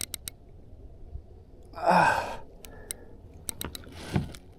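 A man's heavy, strained sigh about two seconds in, with a few light clicks and knocks around it.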